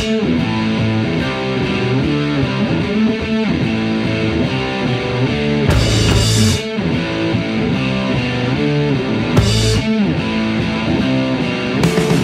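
Rock music track with a distorted electric guitar playing.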